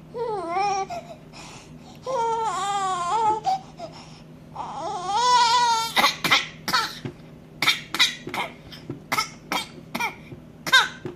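Baby fussing with three angry, wavering cries, then a run of short forced coughs, about two a second. The coughs are put on to get attention, not from illness.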